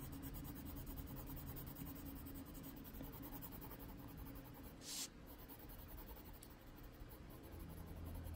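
Faint scratching of a Prismacolor colored pencil on paper as a light blue is blended over darker blue layers, with one brief sharper sound about five seconds in.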